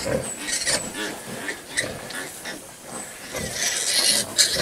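Piglets grunting and squealing as they jostle at the sow to nurse, in short irregular calls that grow busier and louder near the end.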